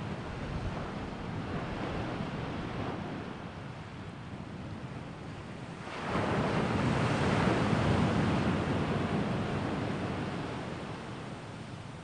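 Wind blowing outdoors as a steady rushing noise, with a stronger gust building about halfway through and slowly dying away.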